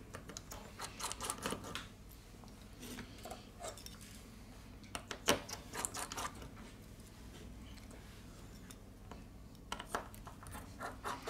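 Small scattered clicks and scrapes of a precision screwdriver working the tiny screws at the top of a smartphone's frame, with one sharper click about five seconds in and a quiet stretch after it, over a faint steady hum.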